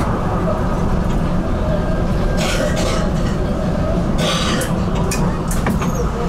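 HTM GTL8 articulated tram running, heard from inside the car: a steady low rumble of wheels on rail and traction drive, with two short hissing noises about two and a half and four seconds in.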